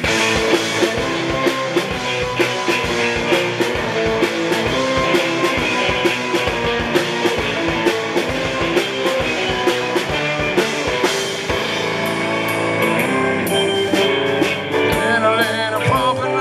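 Live band music from drum kit, canjo and electric guitar playing a rock-style passage with steady drum hits and no singing for most of it.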